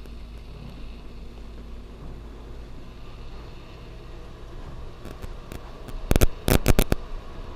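Steady low hum of room tone, then a quick run of about six sharp clicks and knocks about six seconds in.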